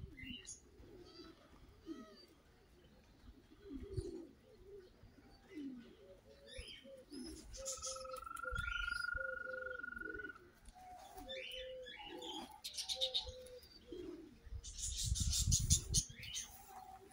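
Domestic fancy pigeons cooing over and over in short, low, soft calls, mixed with higher chirps. A steady whistle-like tone holds for about three seconds in the middle. A loud flurry near the end is likely wings flapping.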